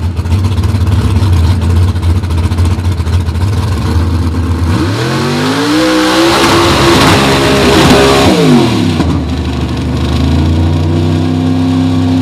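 Lifted mud-bog race truck's engine at full throttle through a mud pit. It runs steadily low, revs up sharply about five seconds in with a loud rushing hiss, drops back after a few seconds, then climbs again near the end.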